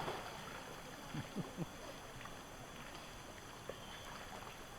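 River water, a soft even wash, with three short low falling sounds a little over a second in.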